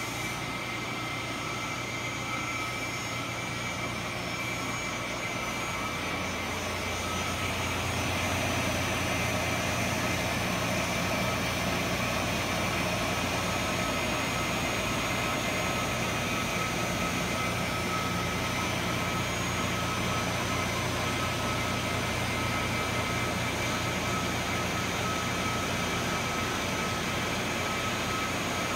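CNC rotating-wire saw running, its spinning wire cutting through a slab of rock wool: a steady machine whine of several held tones over a low hum. The hum grows a little louder about seven seconds in.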